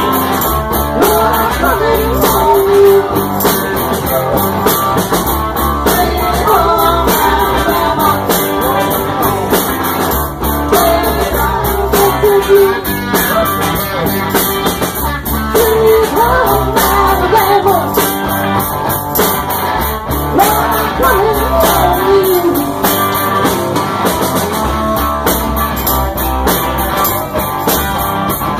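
Live rock band playing loud, with electric guitars, bass and drums and a voice singing over them.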